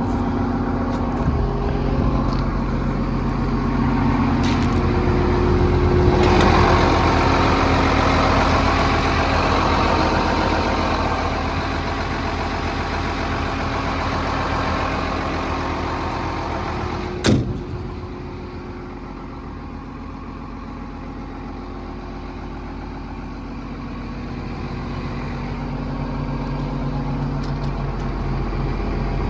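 Case CX330 excavator's diesel engine idling steadily, louder for a stretch in the middle, with one sharp knock a little past the middle.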